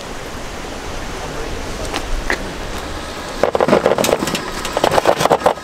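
Heavy wind noise over a vehicle running, then a burst of loud, rapid crackling from about three and a half seconds in.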